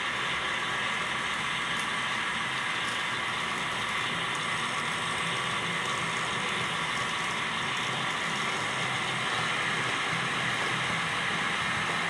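Märklin H0 model train running past, its electric motor and gears whirring steadily with the wheels rolling on the track.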